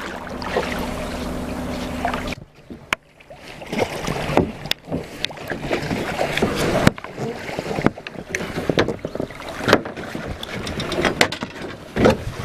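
A steady low hum that stops abruptly about two seconds in, followed by irregular knocks, thumps and sloshing water as a large common skate is gaffed and hauled against and over the side of a small boat.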